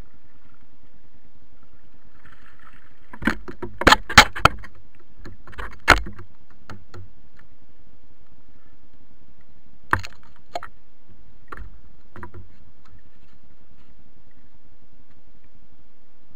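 Sharp knocks and clatters as a freshly caught dogfish is brought aboard and handled in a small inflatable boat: a close run of them about three to six seconds in, then a few single knocks between ten and twelve seconds, over steady background noise.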